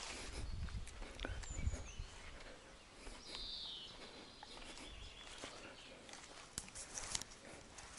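Quiet outdoor ambience: a bird gives a short falling chirp about three seconds in, over footsteps and handling rustle as the camera is carried round.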